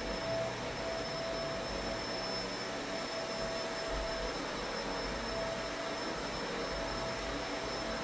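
Upright vacuum cleaner running steadily on a rug, a constant rush of air with a high whine; a lower hum comes and goes as it is pushed back and forth.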